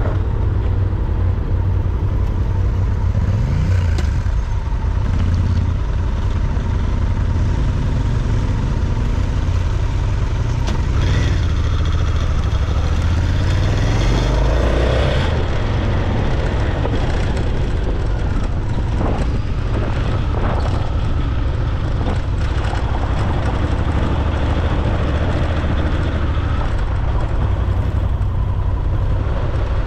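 Motorcycle engine running under way on a gravel road, with a steady, heavy low rumble. The engine pitch rises and falls a couple of times, about 3 s in and again around 14 s in.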